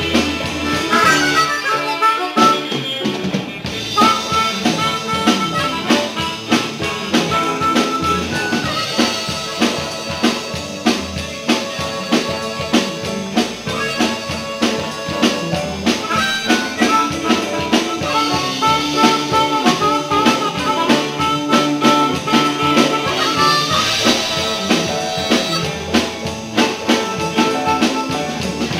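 Harmonica solo played live over a rock band's electric guitar, bass and drum kit. The harmonica holds long notes and bends one note downward about a second in, over a steady drum beat.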